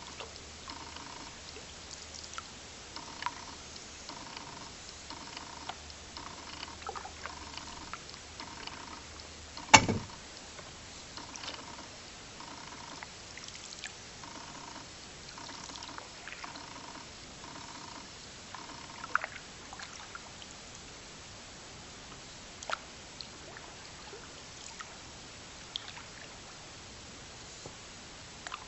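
Canoe paddle strokes in a stream: water trickling and dripping off the paddle, with scattered small clicks and one loud knock of the paddle against the canoe about a third of the way in. A faint note repeats about twice a second through the first two-thirds.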